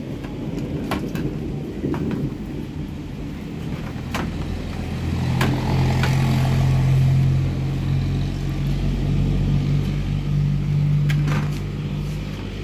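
A steady low engine hum that grows louder about five seconds in and then holds, with a few sharp clicks of the monitor's metal chassis and plastic case being handled during reassembly.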